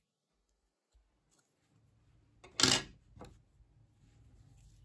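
Scissors snipping through crochet yarn: one short, sharp cut about two and a half seconds in, followed by a fainter click.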